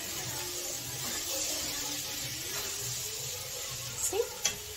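Chole sizzling in a kadhai, a steady soft hiss, with a couple of light spatula knocks against the pan near the end.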